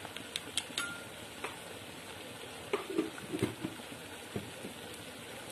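Chopped onions and gram flour frying in oil in a kadhai, with a faint steady sizzle. There are a few light clicks in the first second as a spoon taps in more gram flour, and a few soft knocks around the middle.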